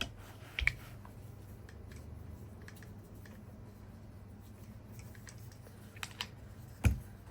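A few sharp plastic clicks and small knocks from a camera accessory being handled and fitted into place: one about a second in and two near the end, over a faint steady low hum.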